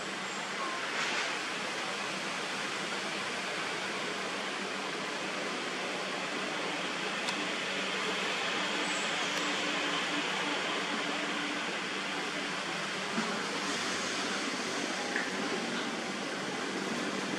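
Steady outdoor background hiss with no clear single source. It grows brighter in the middle and again near the end, with a couple of faint ticks.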